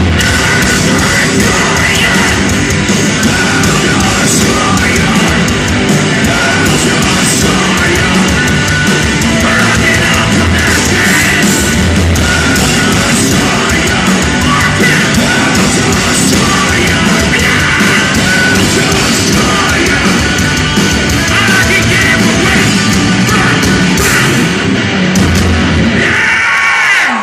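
A hardcore punk/metal band playing live and loud: distorted electric guitars, bass and pounding drums in a dense, steady wall of sound.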